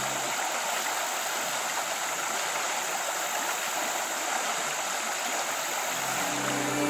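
Steady rush of a shallow stream running over rapids.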